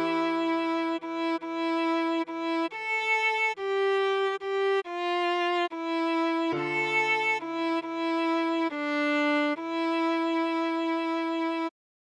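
Viola playing a slow melody of separate bowed notes, mostly one repeated pitch with a few higher notes, over a low held note. The sound cuts out briefly near the end.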